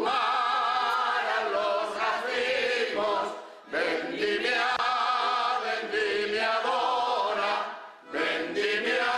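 Choir of jota singers singing a jota unaccompanied in long, sustained phrases, with brief breaks for breath about three and a half seconds in and again near eight seconds.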